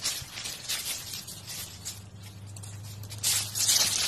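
Rustling and crackling of stiff palm-like fronds and dry mulch as a young alpaca pushes its head through a garden plant. The rustle gets louder about three seconds in.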